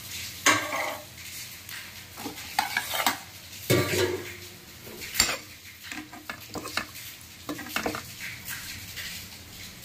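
A spoon scraping and clinking in a pan of stuffed brinjal curry (ennegayi) as it is stirred and served out, in irregular strokes, over a faint sizzle of the oily gravy.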